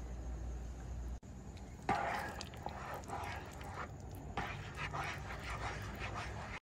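Spatula stirring a thick cream-and-cheese sauce in a frying pan: wet squelching and scraping in uneven strokes, starting about two seconds in. A steady low hum runs under the first second.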